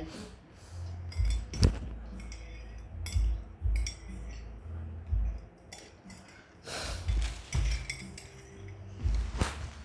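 A metal spoon clinking against a drinking glass a few times, with low rustling and thumps in between.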